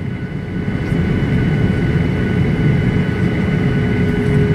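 Cabin noise of a Boeing 737-900ER taxiing, heard from inside the cabin: its CFM56-7B jet engines give a steady rumble at taxi power, with a steady whine on top. The level rises slightly about a second in.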